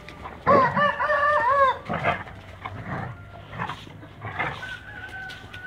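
A rooster crowing once, a long wavering call about a second and a half long.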